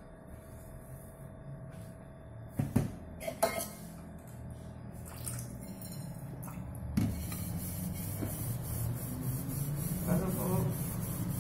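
A dish sponge scrubbing a stainless steel mug. There are a few knocks and clinks of the metal mug being handled, then from about seven seconds in quick rhythmic scrubbing strokes, several a second.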